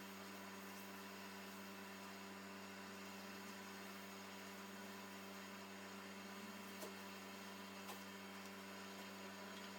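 Faint steady electrical hum over a hiss, with two faint clicks about seven and eight seconds in.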